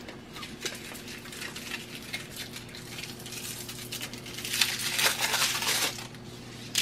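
Cinnamon stick being broken into small pieces by hand: dry bark cracking and crackling in small snaps, densest about four and a half to six seconds in, over a low steady hum.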